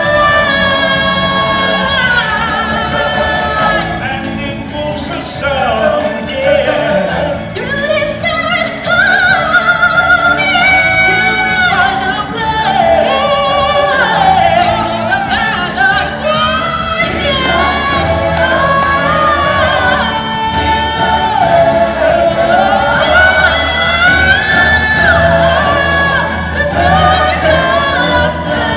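Live stage-show music: several voices singing together over a steady instrumental accompaniment.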